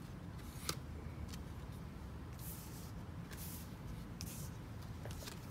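Trading cards being handled on a tabletop: a light tap about half a second in, then three short sliding swishes as cards are drawn and moved across the table.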